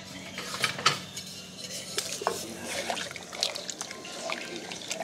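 Pot of water with cinnamon leaves heating on the stove, bubbling with irregular small pops and crackles as it comes to the boil, over a faint steady hum.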